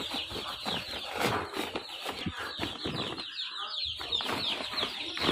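Young chickens in a cage peeping without a break: many high, short, falling peeps overlapping, with scattered knocks and rustling of handling.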